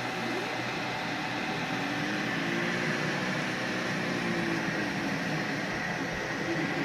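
Tronxy X3 3D printer running: stepper motors whine in tones that rise and fall as the head and bed move, over a steady fan hiss.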